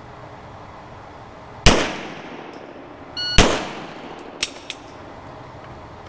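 Two pistol shots about a second and a half apart, each a sharp crack with a reverberant tail, fired slowly at a 19–20 yard target. A short beep comes just before the second shot, and a couple of light clicks follow it.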